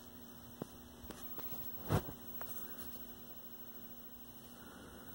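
Low, steady electrical mains hum from a running 1973 Toshiba C321 hybrid tube/transistor colour TV, with a few light clicks and one sharper knock about two seconds in.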